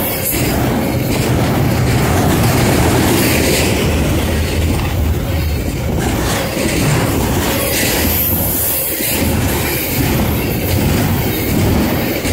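Double-stack intermodal container train's well cars rolling past at speed close by: a continuous loud rumble and rush with wheels clicking over the rails.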